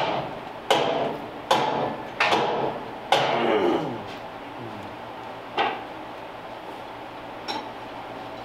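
Sharp metal knocks and clanks from handling an old DoAll vertical band saw's housing and fittings. Five come in quick succession, each ringing briefly, and one rings on with a falling pitch. Two fainter knocks follow later.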